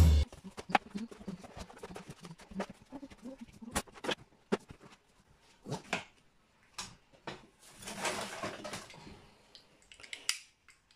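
Shelf liner being laid and smoothed into an empty kitchen drawer: scattered light taps and clicks, with a longer rustle about eight seconds in.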